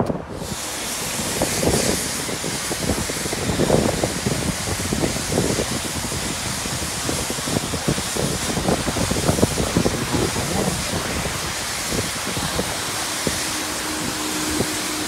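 High-pressure spray wand of a self-service car wash switching on just after the start and spraying with a steady hiss, with gusty wind on the microphone.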